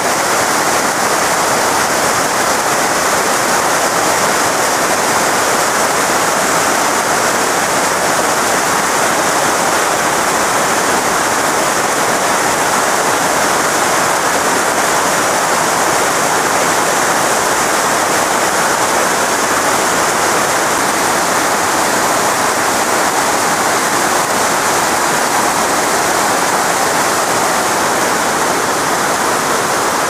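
Mountain stream cascading over boulders close by: a loud, steady rush of white water.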